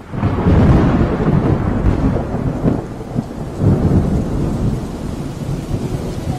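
Thunder rumbling over heavy rain. It starts suddenly and swells in several deep surges.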